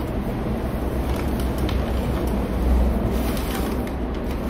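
Cardboard box flaps being opened and crumpled kraft packing paper rustling as it is pulled out, over a steady low rumble.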